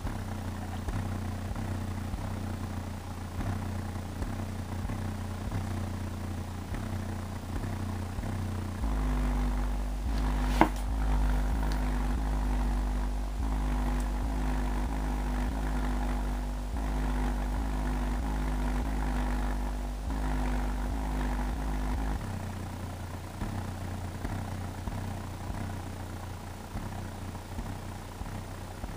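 A 6.5-inch long-throw subwoofer driver, unmounted in free air, playing a song's bass loudly with its cone moving far. About nine seconds in, the deep bass gets much heavier for around thirteen seconds, then eases back. There is a single sharp click about ten seconds in.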